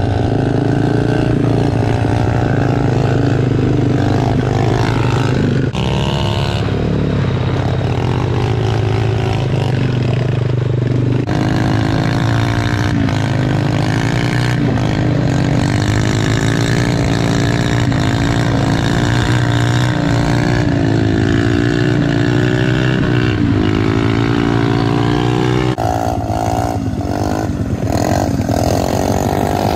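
Small single-cylinder pit bike engine running at speed and revving, its pitch rising and falling with the throttle. The sound changes abruptly about 6, 11 and 26 seconds in.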